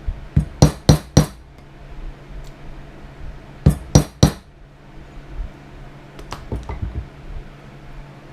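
Hammer striking metal with sharp ringing clinks: a quick run of strikes, three more a couple of seconds later, then lighter taps near the end. This fits setting hardware in leather belt-making.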